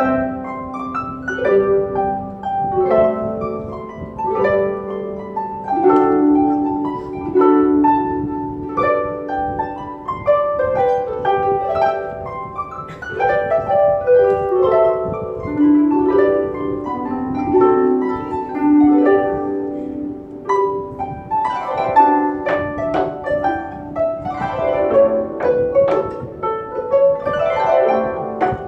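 Harp ensemble playing: plucked harp strings in flowing melodic lines and ringing chords, fuller and louder in the last few seconds.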